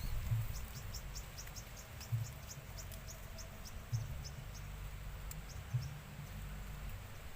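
An insect, cricket-like, chirping in a quick regular series of short high pulses that slows and stops about six seconds in, over a low rumble.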